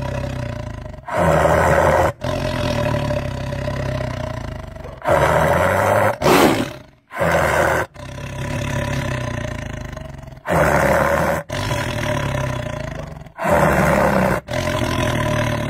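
Loud wild-animal calls, cut into short segments about one to three seconds long with sudden breaks between them, the same kind of call coming back again and again.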